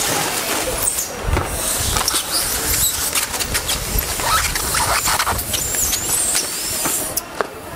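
Clear plastic air-column bubble bags crinkling and rustling as they are handled, with many small crackles and a few high squeaks about six seconds in.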